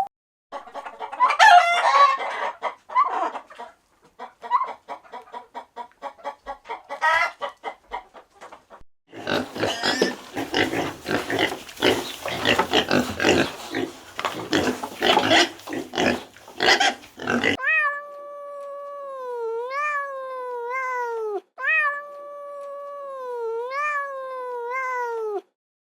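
Farm animal calls one after another: rapid, irregular calls for the first several seconds, then a dense, noisy run of calls from about nine seconds in. Near the end come four near-identical pitched calls, each about two seconds long and dropping in pitch at the close.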